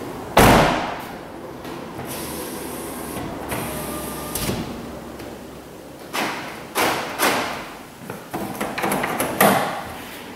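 A car's rear door slams shut about half a second in, followed by a steady low hum for a few seconds. A series of smaller knocks and clunks comes near the end.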